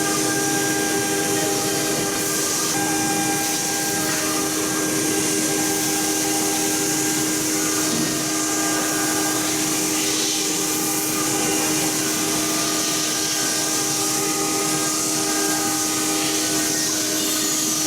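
Blue Elephant CNC router running steadily: a constant whine of several steady tones over a continuous hiss, with some of the tones shifting in pitch as the machine works.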